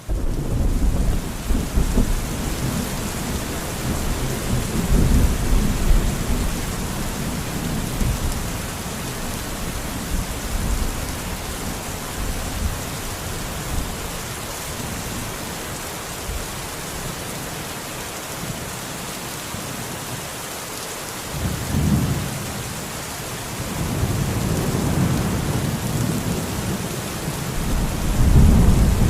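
Steady heavy rain hissing, with low rolls of thunder that swell and fade: a long rumble at the start, a short one about two-thirds through, and a longer one building near the end.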